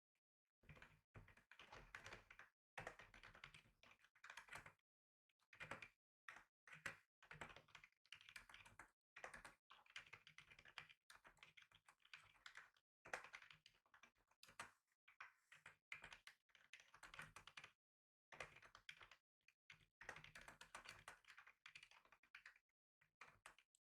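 Computer keyboard being typed on: quiet, rapid runs of keystrokes broken by short pauses.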